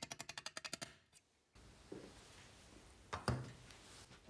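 Rapid, even clicking of a metal-working tool biting along the edge of a sheet-steel pedal-car part, about ten clicks a second, slowing and stopping about a second in. Just after three seconds come two sharp knocks of metal parts set down on a wooden bench.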